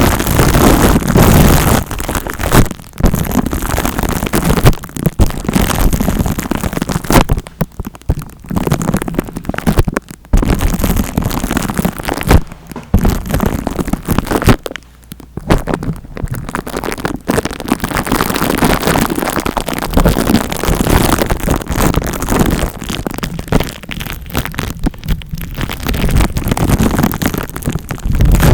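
ASMR scalp-massage trigger: fingers scratching and rubbing right against the microphone, a loud, dense crackle broken by a few brief pauses.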